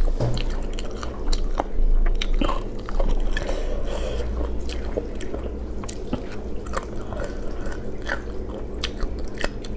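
Close-up chewing and biting of spicy braised chicken pieces such as wing tips and cartilage, with irregular small crunchy clicks throughout, over a low steady hum.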